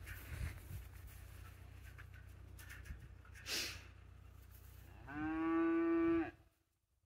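One moo from cattle, a steady, fairly high-pitched call lasting a little over a second near the end, over a low steady rumble.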